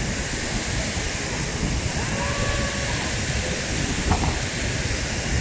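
Chitrakoot waterfall's steady roar of falling water. A faint drawn-out tone comes about two seconds in, and a brief thump about four seconds in.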